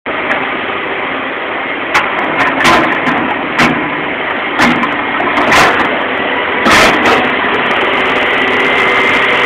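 O&K RH6 hydraulic excavator's diesel engine running steadily, with about half a dozen sharp knocks or clanks at irregular intervals over it.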